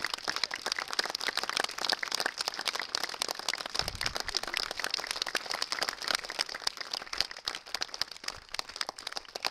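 Crowd applauding: steady clapping from many hands.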